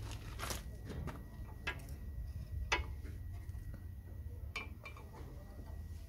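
Scattered light metallic clicks and clinks, seven or so, from steel-backed brake pads and the caliper being handled at a car's front disc brake. A steady low rumble runs underneath.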